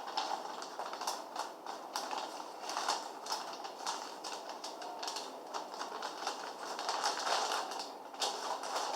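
Plastic bag crinkling and rustling as a laptop motherboard is slid into it and handled, an irregular run of crackles.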